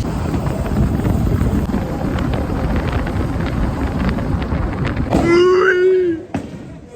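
Wind buffeting the microphone and road rumble while riding in the open bed of a lifted truck on the move. Near the end a man's voice gives a drawn-out shout lasting about a second.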